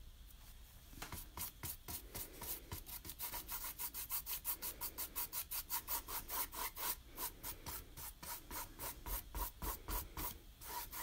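Paintbrush scrubbing black paint back and forth onto a stretched canvas in quick, even strokes, several a second, starting about a second in.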